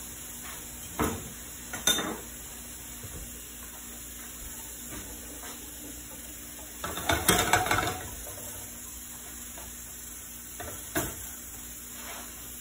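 Vegan butter melting in a hot oiled nonstick frying pan with a faint, steady sizzle. A few sharp knocks and clinks of cookware and utensils sound over it, the loudest run of clattering about seven seconds in.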